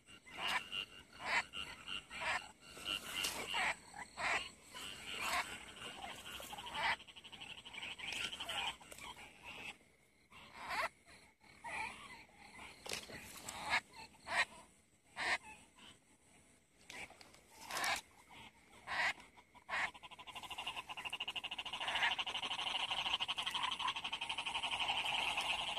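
Frogs calling after heavy rain: many short, repeated croaks. About three-quarters of the way through, a steady, fast trill joins in.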